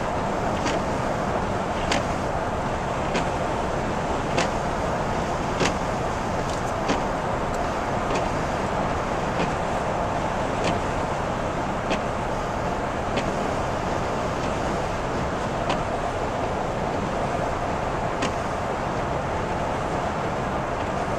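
Steady road and tyre noise inside a car's cabin at freeway speed on a wet road, with a short click about every 1.2 seconds from the windshield wipers sweeping.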